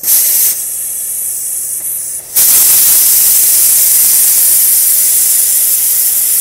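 Compressed-air media blaster wand firing walnut shell grit onto concrete: a loud hiss of air and blasting media. A short burst at the start, then a steadier hiss that gets much louder about two and a half seconds in and holds.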